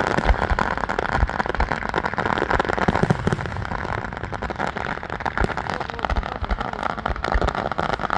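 Fireworks going off continuously: a dense, rapid crackle of small pops with scattered low booms.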